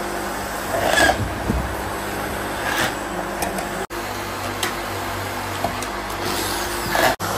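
Steady workshop hiss and hum, with a few light clacks as plastic motorcycle tail-light housings are handled and set down on the bench.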